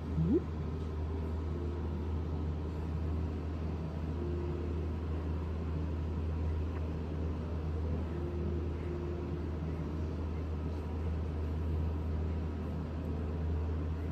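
A steady low droning hum, with a brief sharply rising squeak just after the start.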